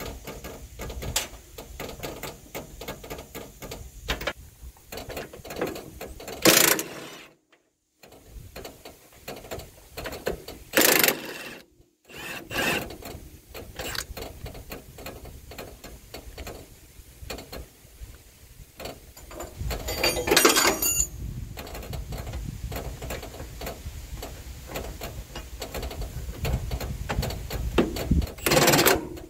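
Hand ratchet wrench clicking in short runs as bolts are worked loose from a truck's sleeper suspension brackets, with a few louder metal clanks.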